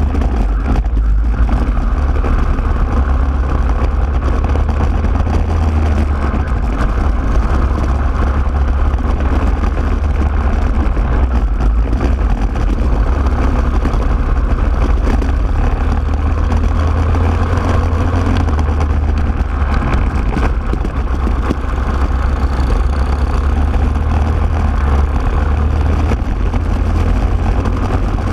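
A racing kart's engine running at speed on track, heard from a camera mounted on the kart, over a steady deep rumble.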